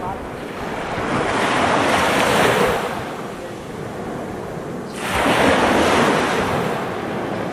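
Waves breaking on a sandy beach, as a continuous hiss of surf. One wave swells in about a second in, and a second one crashes in suddenly about five seconds in.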